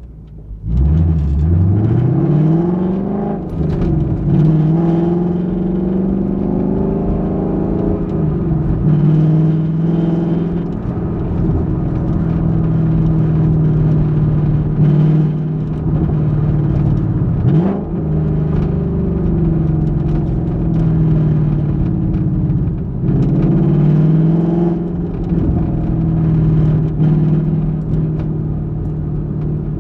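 Ford Mustang GT's 5.0 L V8 exhaust, heard from inside the trunk. It pulls up from low revs about a second in, then runs at a mostly steady cruising note, with a few brief dips and changes in pitch, the first around four seconds in and later ones past the middle.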